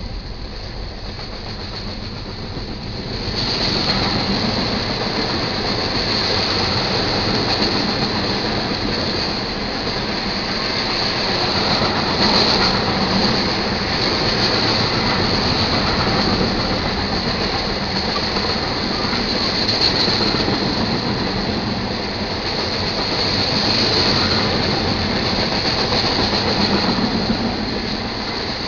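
Freight cars of a manifest train rolling past: steel wheels clattering on the rails with a high, steady squeal. It gets louder about three seconds in.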